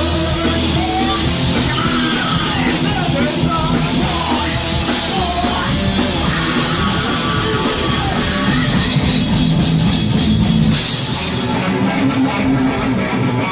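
Live thrash metal band playing loud, with distorted electric guitars, bass and drum kit. A bending melodic line runs over the first half, and the top end thins out near the end.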